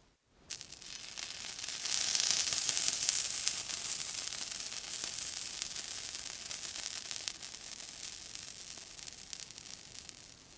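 Water sizzling on a hot surface: a hissing sizzle with fine crackle that starts suddenly about half a second in, swells over the next second or so, then slowly dies away.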